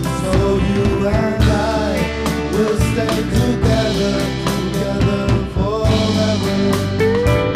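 Classic rock song playing: drums keep a steady beat under guitars and a gliding melody line.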